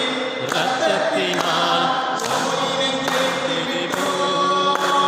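Devotional hymn singing, with hand claps keeping time a little under once a second.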